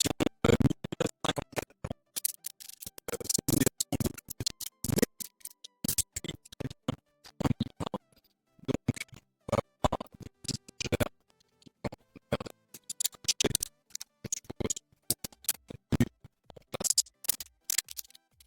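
Background music with a choppy beat of sharp percussive hits, broken by brief gaps of silence.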